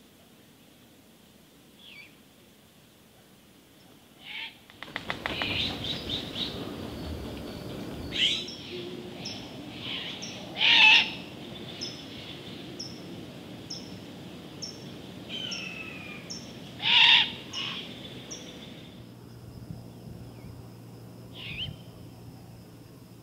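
Great horned owls giving short, raspy screeching calls: a few faint ones early on, then three loud ones about eight, eleven and seventeen seconds in. A steady rushing noise with a regular faint high ticking runs beneath from about five seconds in until near the end.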